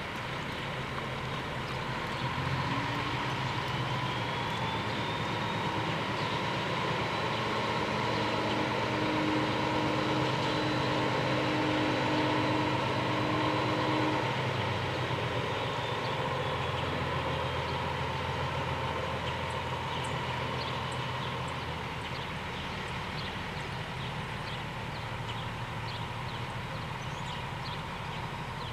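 Cummins ISM diesel engine of a 2007 International 9200i truck tractor running as the truck drives past and moves away. The engine note rises about two seconds in, holds steady, then eases and grows fainter in the second half.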